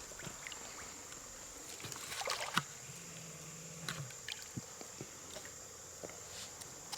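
Night insects keep up a steady high-pitched drone, with scattered clicks and handling noises and a short, louder clatter about two and a half seconds in.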